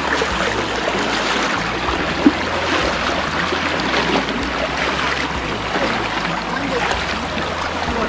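Mountain stream water rushing steadily over rocks, with a single sharp click a little over two seconds in.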